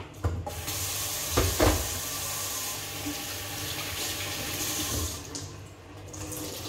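Kitchen tap running into the sink and shut off about five seconds in, with a couple of loud clunks about a second and a half in.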